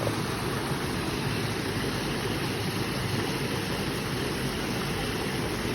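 Waterfall: water pouring and splashing in a steady, full rush, strongest in its deep low rumble.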